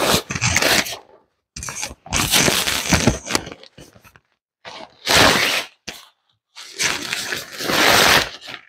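Fabric carry bag rustling and scraping as a folded camping cot is pulled out of it, in four bursts of about a second each with short pauses between; the loudest come in the second half.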